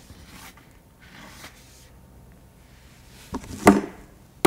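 Stiff bristles of a narrow-headed plastic hand brush scrubbing faintly inside a plastic bucket in two short spells, then sharp knocks as the brush and bucket are handled, the loudest about three and a half seconds in.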